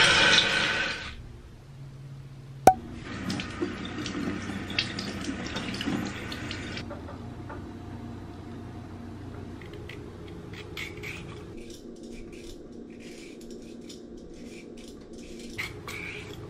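A loud rushing noise stops about a second in, followed by a single sharp knock. A kitchen tap then runs into a stainless steel sink for a few seconds as a carrot is rinsed, and after that a swivel vegetable peeler scrapes along the carrot in short strokes.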